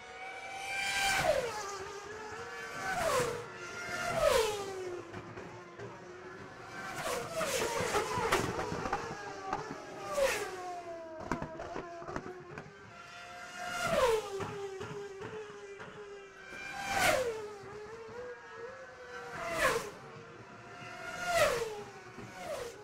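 Racing car motors whining, the pitch dropping sharply and levelling off every two to three seconds, with short hissing spikes at the loudest moments.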